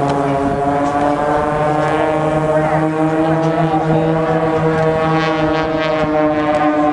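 Propeller-driven aerobatic plane flying past, its engine giving a steady buzzing drone that rises a little in pitch about a second in.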